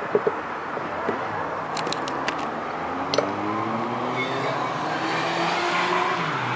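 A motor vehicle's engine running outside, its hum gliding slowly in pitch and growing a little louder toward the end, like a car passing. There are a few light clicks in the first half.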